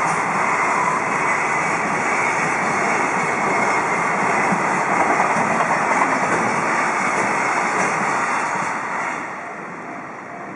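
Freight cars of a high-speed container train rolling past at speed: a loud, steady rush of steel wheels on rail, which fades noticeably about nine seconds in as the end of the train goes by.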